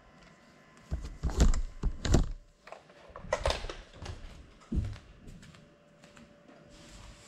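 A series of clicks and knocks as a small FPV drone is handled and set down on a tile floor, followed by a single soft thump near the end; the propellers are not spinning.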